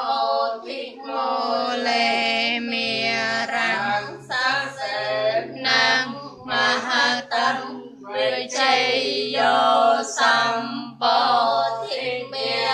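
Voices chanting a Buddhist devotional chant, in phrases broken by short pauses for breath.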